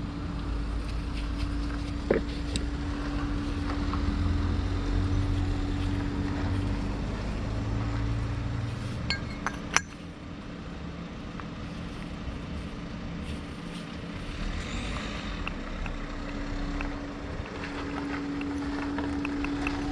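A few light metal clinks, about two seconds and about ten seconds in, as disassembled starter-motor parts are handled, over a steady low background hum.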